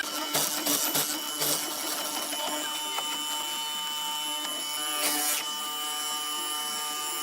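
A small electric woodworking power tool running with a steady whine. It gives louder hissing bursts as it works the wood, about half a second in, around one and a half seconds, and again around five seconds.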